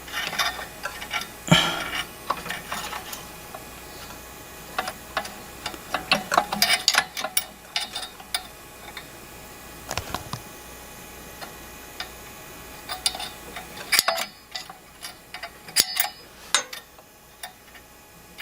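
Small metal carburetor parts (springs, clips and linkage) clicking and tapping as they are handled and fitted by hand: irregular light clicks with a few sharper knocks scattered through.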